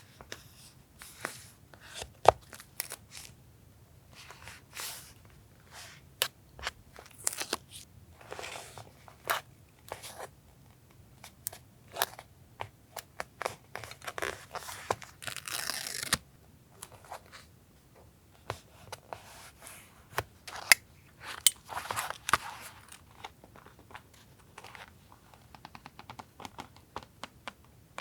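Paper being worked for a journal collage: tearing and rustling interspersed with many sharp taps and clicks. A longer stretch of tearing or rustling comes about halfway through, and another shorter one later.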